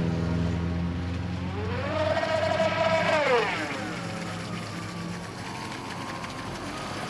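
The Leopard 5692 brushless electric motor of an MFA Spearfish RC speedboat whines at speed. Its pitch climbs steeply about a second and a half in, holds high, then drops back to a lower steady whine, over the hiss of the hull on the water.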